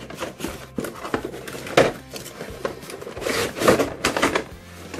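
Cardboard toy packaging being handled: the box flaps rustle and scrape, and the plastic toy garbage truck knocks against the box in a few irregular bursts.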